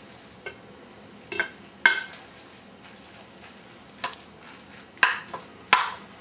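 Spaghetti carbonara being tossed in a ceramic bowl with a metal spaghetti server and a wooden spatula: irregular clinks and scrapes of the utensils against the bowl over the soft stirring of the wet pasta.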